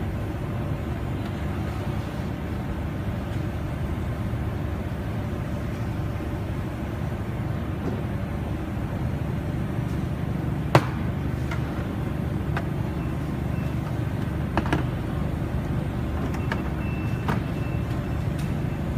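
Steady low background rumble, with a few sharp clicks of tweezers and a soldering iron tip against an LED display module. The loudest click comes about eleven seconds in.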